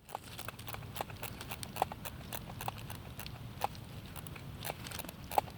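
Irregular light clicks and hollow knocks, a few each second, over a low steady rumble.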